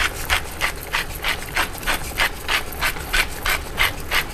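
Hand pepper mill being twisted to grind peppercorns, giving a dry rasping grind in short, even strokes, about three a second.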